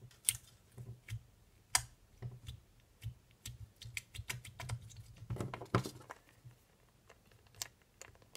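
Slime being squished and poked in a small plastic cup, making quiet, irregular little clicks and squelches that are busiest about five to six seconds in.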